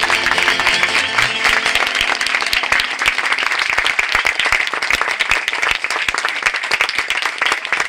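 Audience applauding after a song ends, with dense clapping throughout. The band's last chord rings under the clapping and dies away about three and a half seconds in.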